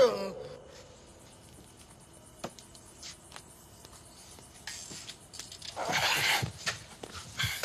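Quiet room with a few faint knocks, then a burst of rustling and scuffling about six seconds in as men grab a limp man by the arms and haul him out of a chair, followed by a few short thuds.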